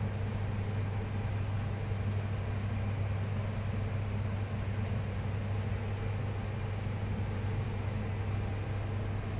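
Steady low machine hum with an even hiss over it, unchanging.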